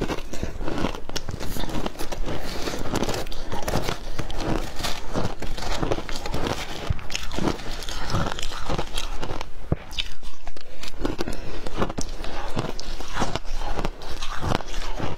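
Shaved ice being bitten and chewed close up: a dense, irregular run of crisp crunches.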